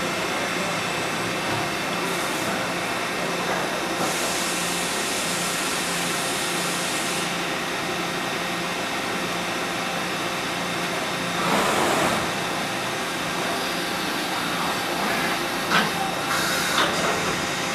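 Mazak Integrex 400-III ST CNC turning center running a machining cycle, heard through its enclosure: a steady machine hum under the hiss of coolant spraying over the tool and part. The hiss grows stronger for a few seconds about four seconds in. There is a louder rush of noise around twelve seconds and a few short sharp knocks near the end.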